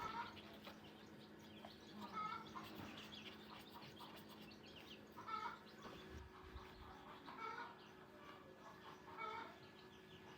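Chickens clucking: short calls repeating about every two seconds, over a faint steady background hum.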